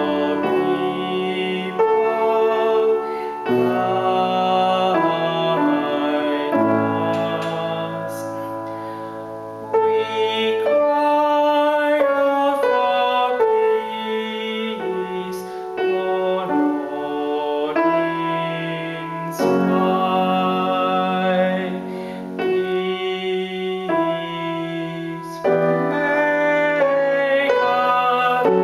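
Slow choral-style music played on a keyboard: held chords change every second or two over a moving bass line.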